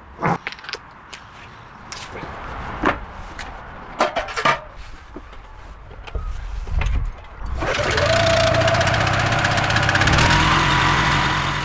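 Scattered clicks and knocks of equipment being handled. About two-thirds of the way through, the petrol engine of a van-mounted pressure washer starts and runs steadily and loudly, with a whine that rises slightly in pitch near the end.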